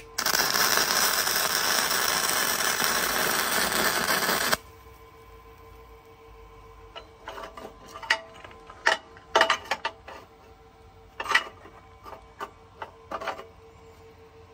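Flux-core wire-feed (MIG) welder laying a bead on steel: a loud, steady crackling sizzle of the arc that starts at once and cuts off about four and a half seconds in. After it come scattered light clicks and taps, with a faint steady hum underneath.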